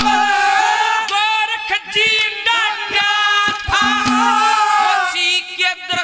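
A man singing a Haryanvi ragni in long, wavering held notes over a steady instrumental accompaniment.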